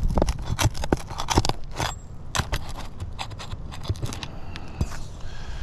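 Asphalt roof shingles scraping and crackling as they are pried up to pull the nails that hold them, a run of irregular sharp clicks and scrapes.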